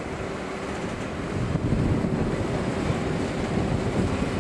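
Two diesel locomotives in tandem hauling a track-laying train past, their engines running under a steady rumble of wheels on rail. The sound grows louder about a second and a half in as the locomotives near, with wind on the microphone.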